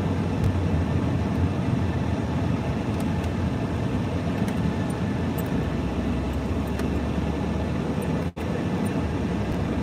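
Steady road and engine noise inside the cabin of a moving car. The sound cuts out for an instant just over eight seconds in.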